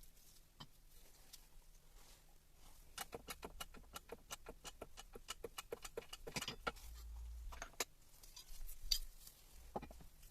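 A run of quick, light clicks, about five or six a second, lasting a few seconds, followed by a few scattered knocks.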